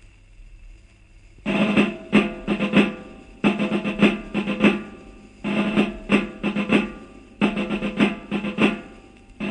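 Tabal, the Valencian folk drum, playing an introduction of four short phrases of strokes and rolls, one every two seconds, after about a second and a half of faint record hiss and hum.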